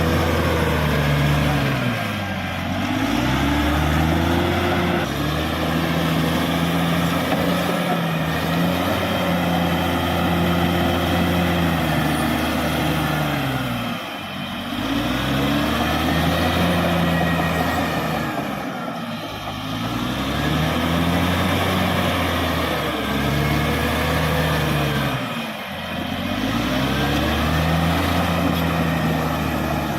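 Caterpillar D6R XL bulldozer's diesel engine running hard under load. Its pitch sags and then climbs back four times, about 2 s in, 14 s in, 19 s in and 26 s in, as the engine lugs down and recovers.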